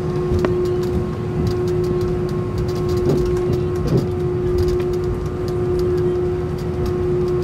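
Airliner cabin noise from an Airbus A320 taxiing: a steady rumble under a constant droning hum from the engines running at low power.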